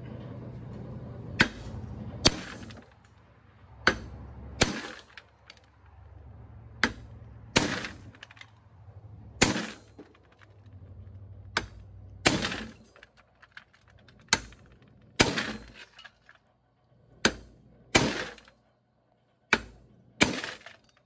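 Hammer blows on a steel rod used as a punch, driving a U-joint cap out of a Polaris RZR 800 driveshaft yoke held in a vise: about sixteen sharp metallic strikes, roughly one a second and often in pairs.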